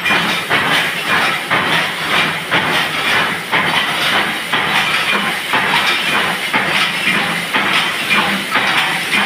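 Workshop machinery running with a continuous dense clatter of many quick irregular strokes and a steady hiss underneath.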